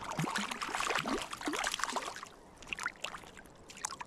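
Irregular splashing at the river's surface from a small hooked rainbow trout being played in, heaviest in the first two seconds, over the steady rush of flowing river water.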